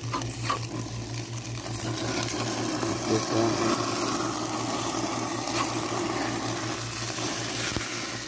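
Hamburger patties sizzling on a propane grill, with a couple of spatula clicks against the grate at the start. From about two seconds in the sizzle grows louder and fuller as dripping fat flares up in the burner flames.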